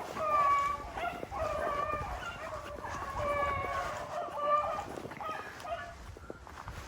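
A pack of rabbit-hunting hounds baying together in long, overlapping calls, the sound of the dogs running a jumped rabbit's track. The calls thin out near the end.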